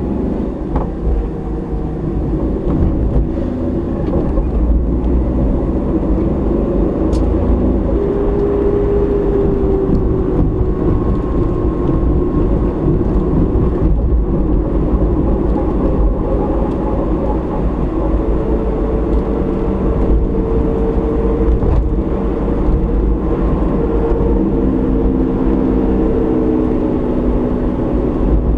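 Car driving at road speed, heard from inside the cabin through a dashcam microphone: a steady low rumble of tyres and engine, with a faint hum that drifts up and down in pitch.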